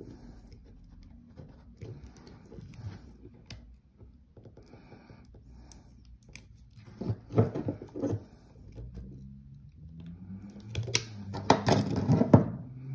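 A small metal tool scraping and clicking against the metal tab on top of a cylindrical battery cell as the tab is worked loose. There is a louder stretch of scraping about two-thirds of the way in and a dense run of sharp clicks near the end.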